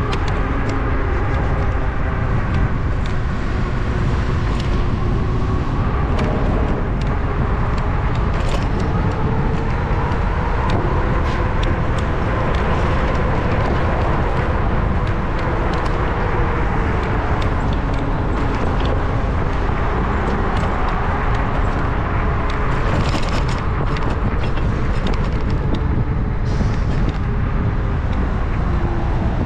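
Steady wind buffeting and road rumble picked up by a camera mounted on a moving bicycle's handlebars, with a faint whine that slowly rises and falls in pitch and occasional light rattles over bumps.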